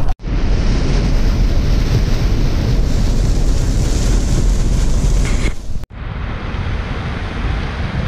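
Steady rain and road noise inside a car moving on a wet highway, with rain hitting the windshield. A cut about six seconds in drops to a slightly quieter, duller steady road and wind noise.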